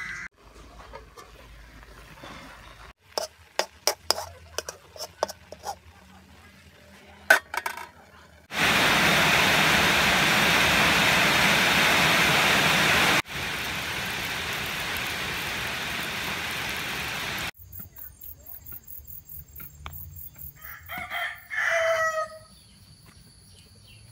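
Scattered clicks and pops, then a loud steady hiss for about five seconds that drops to a quieter hiss. Near the end a rooster crows once.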